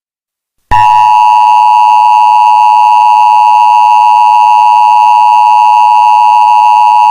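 Emergency Alert System attention signal: a loud, steady two-tone alarm that starts abruptly under a second in and holds without change.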